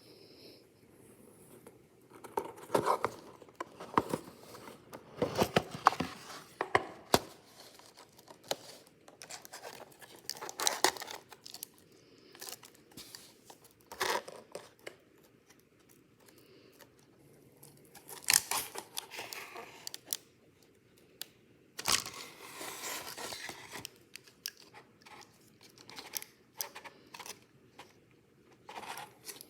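Packaging being opened by hand: bursts of tearing and crinkling, broken by sharp clicks and taps, with quiet pauses between them.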